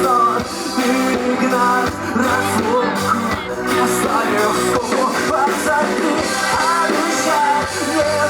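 A rock band playing a song live, with amplified guitars and a sung vocal line over it.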